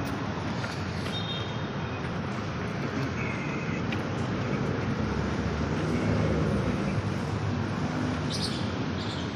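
Steady outdoor traffic noise, a continuous low rumble of vehicles, with a few faint short high tones about one and three seconds in.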